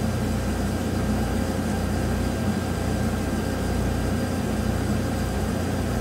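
Chevrolet Silverado V8 idling steadily, now running on all eight cylinders with the dead-missing cylinder 5's spark plug wire plugged back on.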